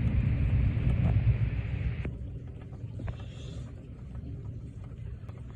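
Thunder rumbling during a storm, loud for the first two seconds and then falling to a lower steady rumble. A few sharp ticks, from hail striking the window, sound over it.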